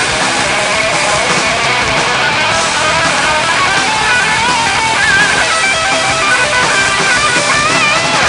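Distorted electric guitar playing a lead line of held, bent notes with vibrato over a dense rock backing.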